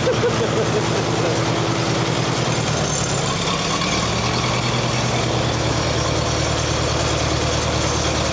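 The sawmill's engine running steadily with a fast, even firing beat; its tone shifts slightly about three to four seconds in.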